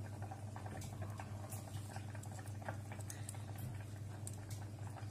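Thickened milk and rice simmering in a steel pot, small bubbles popping irregularly over a steady low hum.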